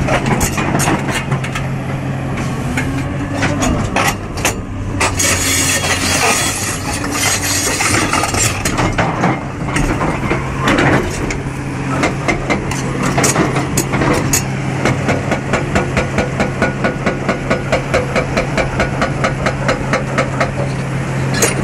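Caterpillar 336D excavator's six-cylinder C9 diesel engine running steadily at close range, with scattered knocks and clatter over it. From about fifteen seconds in, a fast, regular pulsing of roughly three beats a second joins it.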